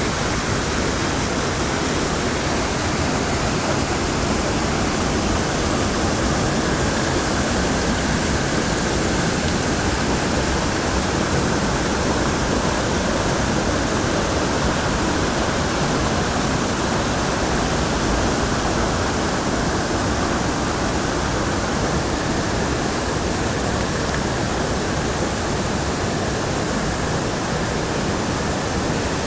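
Waterfall pouring over rock: a continuous, even rush of falling water that does not change in level.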